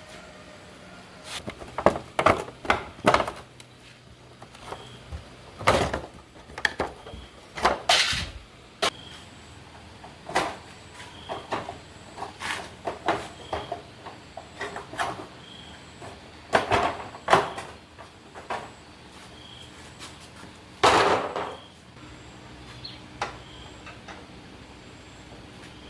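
A series of irregular knocks and clacks, some in quick clusters, with a longer scraping burst lasting about a second near the end.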